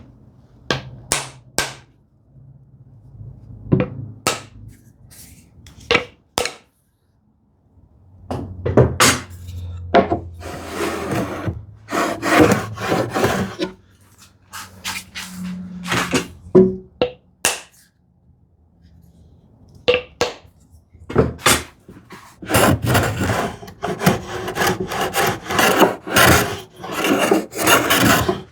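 Handmade wooden rabbet plane cutting a rebate along the edge of ash boards: repeated push strokes, each a rasping swish of the blade shaving the wood. A few short sharp knocks come in the first few seconds, and the strokes come thick and fast over the last six seconds.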